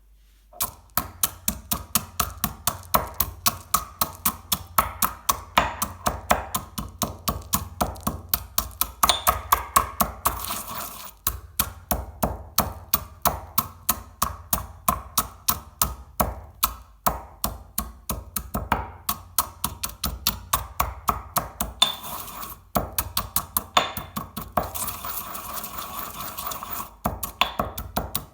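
Chocolate balls being crushed: a quick, regular run of sharp crunching impacts, about three a second, beginning about half a second in.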